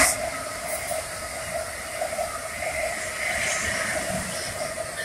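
Amtrak Amfleet passenger cars rolling past at speed: a steady rushing of wheels on rail with a wavering hum.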